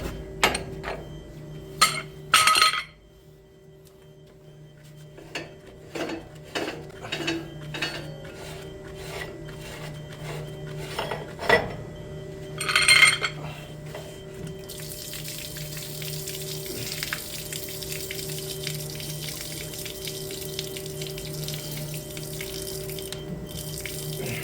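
Metal tools and pipe fittings clinking and clanking, two louder clanks among lighter clicks, over a steady low hum. From about a third of the way in, a steady hiss of running water takes over.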